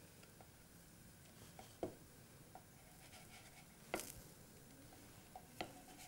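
Mostly near silence, broken by three short scrapes and taps of a utensil against the pan as a buckwheat pancake (khule) is lifted and turned over; the loudest comes about four seconds in.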